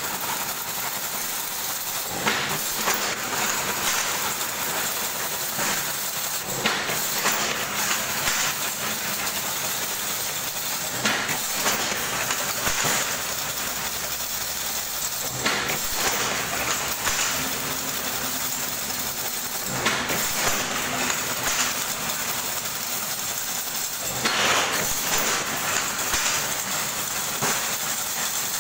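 Chain-link wire mesh weaving machine running: a steady mechanical clatter with repeated metallic clanks as the wire is formed and woven into diamond mesh.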